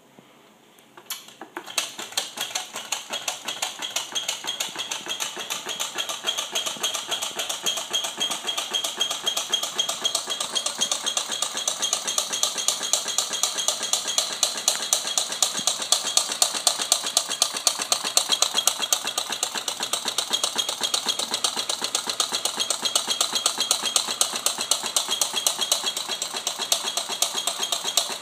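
Homemade soda-can Stirling engine, candle-heated with a steel-wool displacer, starting up about two seconds in and then running with a fast, even clatter of clicks. The clatter grows louder over the first ten seconds or so, then holds steady.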